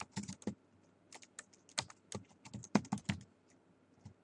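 Typing on a computer keyboard: key clicks in short, uneven runs.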